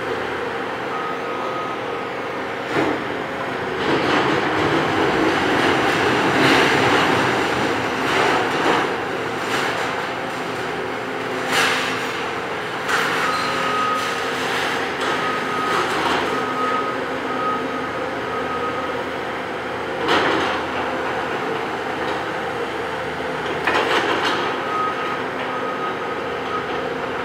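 Heavy demolition machinery running steadily, with a vehicle's reversing alarm beeping in three runs: near the start, for several seconds in the middle, and near the end. Several sharp bangs or clanks stand out over the engine noise.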